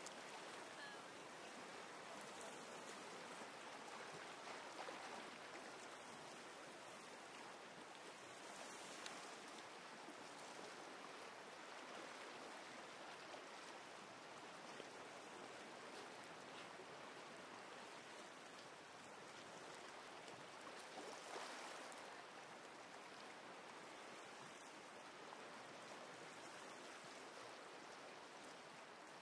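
Faint, steady rushing hiss, with soft paper rustles about 9 and 21 seconds in as the pages of a large hand-bound book are turned.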